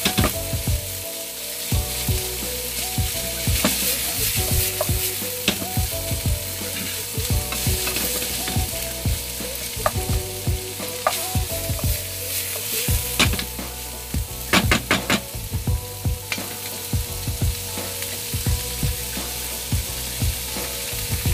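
Shrimp and ground pork sizzling as they fry in a nonstick pan, with a wooden spoon stirring and knocking against the pan again and again; a quick run of knocks comes about fifteen seconds in.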